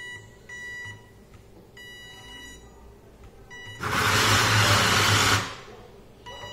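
Small electric drive motor of an Arduino-converted RC drift car, worked from a phone app: several short high-pitched whines, then the motor runs loudly for about a second and a half from about four seconds in.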